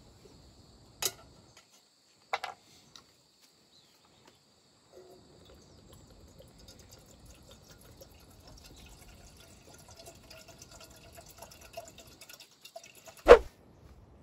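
A big fish jumping in the river, heard as one loud splash near the end. Before it come a few faint clicks over a quiet background.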